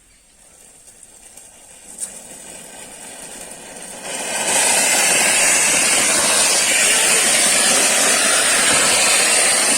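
Small electric motor of a homemade bottle boat whirring, with a rushing hiss of churned water. It builds up over the first few seconds, then runs loud and steady.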